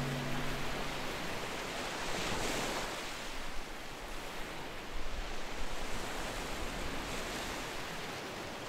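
Ocean surf washing ashore, a steady rushing hiss that swells and eases in slow waves, under the last held notes of music dying away in the first second.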